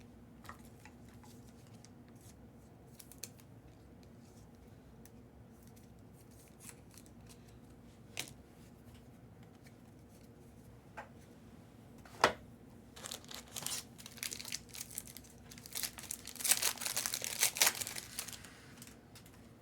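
Trading cards being handled with faint clicks, then a sharp click about twelve seconds in, followed by a Panini Prizm card pack wrapper being torn open and crinkled for several seconds near the end.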